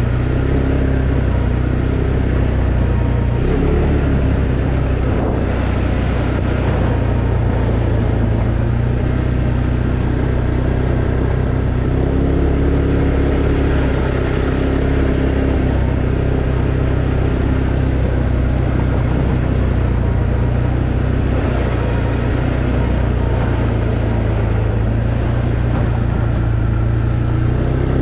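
Arctic Cat Alterra 700 ATV's single-cylinder engine running steadily while riding, its pitch shifting slightly now and then with the throttle.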